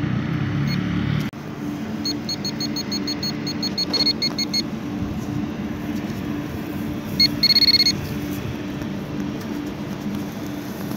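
GP-Pointer pinpointer beeping high-pitched, about five quick beeps a second for a couple of seconds, then a short near-continuous beep a little past seven seconds, the loudest moment: the probe signalling metal close by in the soil. A low steady hum runs underneath, and a low rumble cuts off about a second in.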